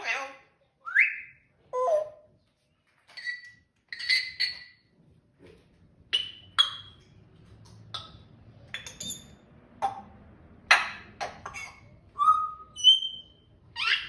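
African grey parrot whistling and clicking. A short rising whistle and a falling note come first, then brief whistled notes. A run of sharp clicks follows, and two short whistles come near the end.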